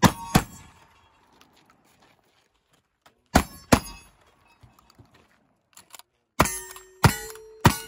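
A black-powder 12-gauge shotgun fires two shots in quick succession, then two more about three and a half seconds later, with faint clicks in between. Near the end, a brass-framed lever-action rifle fires three shots about every 0.6 s, each followed by the ringing of a struck steel target.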